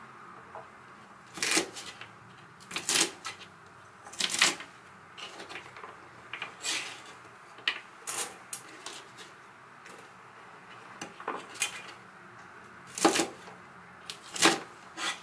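Chinese cleaver chopping yardlong beans on a plastic cutting board: sharp knocks of the blade striking the board every second or two, with lighter clicks between.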